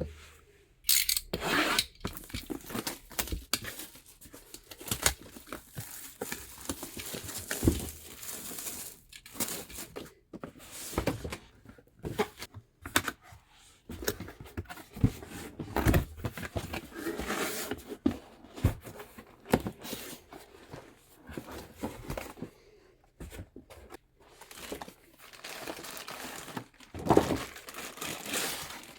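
Packaging being handled and torn open while a computer part is unboxed: irregular crinkling and tearing rustles, with scattered small knocks, the loudest one near the end.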